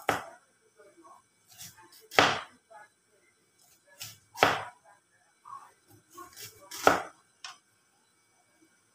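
Kitchen knife slicing through cabbage onto a cutting board: four loud cuts about two seconds apart, with fainter small cuts and knocks between them.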